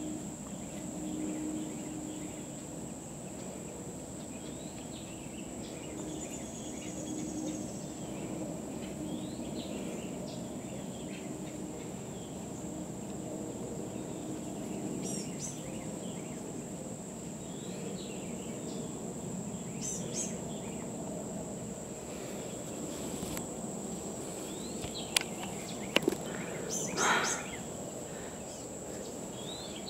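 Woodland ambience: a steady high insect trill with scattered faint bird chirps. Near the end, a few sharp knocks and a short scrape.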